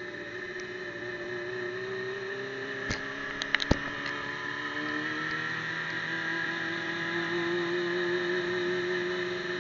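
Motorcycle engine running while riding, heard from a camera mounted on the bike; its pitch climbs steadily as it accelerates from about four seconds in. A few sharp knocks come in a quick cluster just before that.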